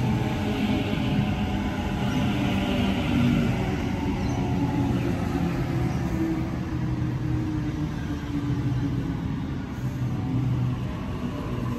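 Sydney Trains Waratah A-set electric train pulling in along the platform and slowing to a stop. Its wheels rumble under a low electric motor whine that drifts down in pitch as it slows.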